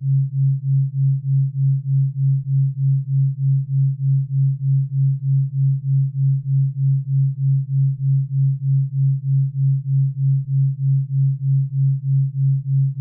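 Low, steady synthesized sine tone that pulses evenly about two and a half times a second: a brainwave-entrainment beat track billed as theta sound.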